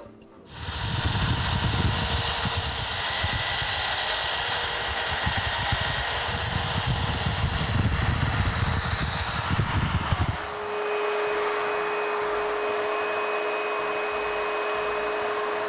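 Electric drill in a vertical drill stand boring a 35 mm cup-hinge hole in a wooden door with a Forstner bit: a loud motor hiss over an uneven low rumble as the bit cuts. About ten seconds in, the drilling stops and a vacuum cleaner hums steadily, sucking the wood chips out of the hole.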